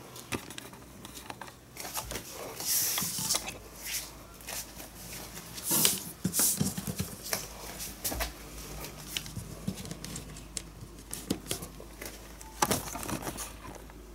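Scattered clicks, taps and brief rustles of cables and plastic connectors being handled and plugged in on a tabletop.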